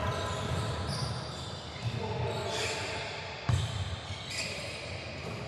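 Basketball dribbled on a hardwood gym floor during a game, with sneakers squeaking as players move. A sharp thud comes about three and a half seconds in.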